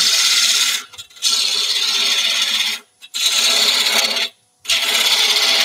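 Bowl gouge taking a roughing cut on the outside of a wooden bowl blank spinning on a lathe at about 1,000 rpm: a loud scraping of the cutting edge through the wood. The cut comes in four passes broken by short pauses, about a second, three seconds and four and a half seconds in.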